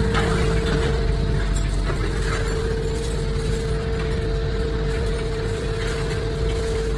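Large hydraulic scrap metal baler running: a steady machine hum holding one even tone over a heavy low rumble.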